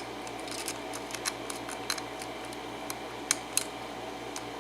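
Metal lock pick tapping and scraping on the pin stacks inside a Baldwin 5-pin cylinder lock while the plug is held under tension: small irregular clicks, with two sharper ones a little past three seconds in, over a steady low hum.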